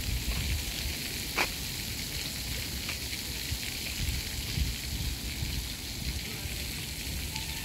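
Outdoor street ambience: a steady hiss with an uneven low rumble, and one short click about a second and a half in.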